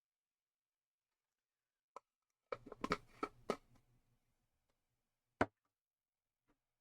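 Clicks and knocks of laptop parts being handled during reassembly: a single click, then a quick cluster of clicks and knocks, and one louder knock a couple of seconds later.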